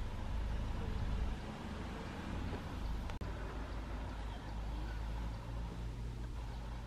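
Vehicle engine idling with a steady low hum, with a single short click about three seconds in.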